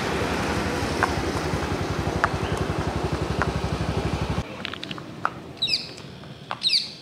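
Motorcycle engine running with a fast, even throb that stops about four and a half seconds in. After that, birds chirp a few times over quieter outdoor background.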